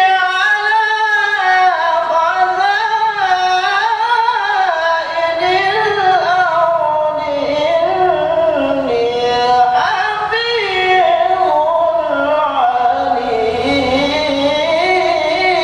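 A young man's voice chanting Qur'an recitation (tilawah) in the melodic contest style, with long held phrases that bend and waver in pitch, sung into a microphone.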